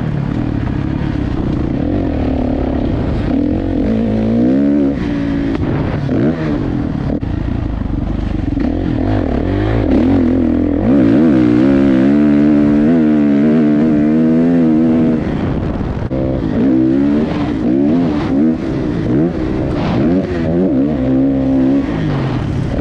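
Dirt bike engine being ridden hard round a motocross track. The pitch climbs and drops over and over as the throttle opens and closes through the gears, and it is held high and loudest for a few seconds about halfway through.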